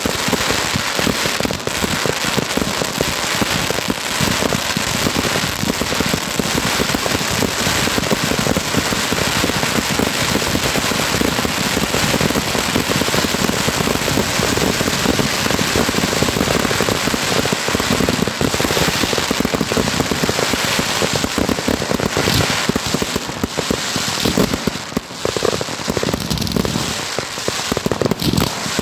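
Fireworks display: a dense, continuous barrage of bangs and crackling, easing briefly near the end.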